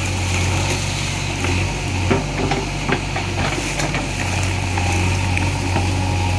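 JCB 3DX backhoe loader's diesel engine running as the machine works, its low hum dipping and coming back, with a few sharp knocks about two to three seconds in.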